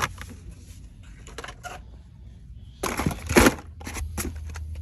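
Blister-carded Hot Wheels cars being handled and sorted in their cardboard case: scattered clicks and plastic rustles, with a louder clatter about three seconds in, over a steady low hum.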